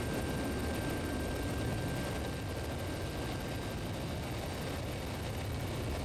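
Helicopter in flight heard from on board: a steady rumble of engine and rotor noise with faint high whines over it.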